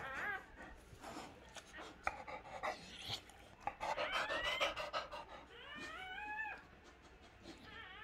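Newborn puppy squealing in a few short, high, wavering cries, the clearest about six seconds in, while the whelping mother dog pants.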